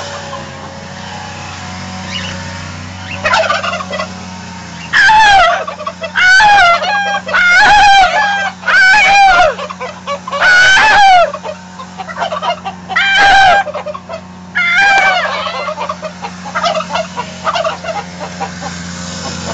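Black domestic tom turkey gobbling over and over: a fainter gobble about three seconds in, then seven loud gobbles, each under a second long, coming one every second or two.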